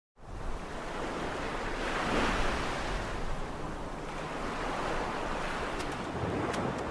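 Ocean surf: waves washing and breaking, a steady rush that swells about two seconds in.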